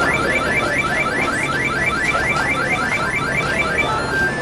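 Electronic palm-reading fortune machine beeping while it reads a hand on its palm plate: a rapid, even train of short rising electronic chirps, about five a second, giving way near the end to a run of stepped rising beeps.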